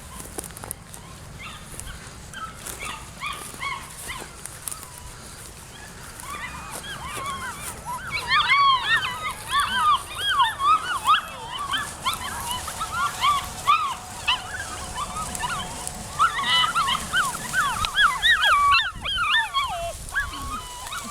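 Several German Shorthaired Pointer puppies, seven weeks old, whimpering and yipping in high, overlapping cries. The cries are faint at first and become loud and constant from about eight seconds in.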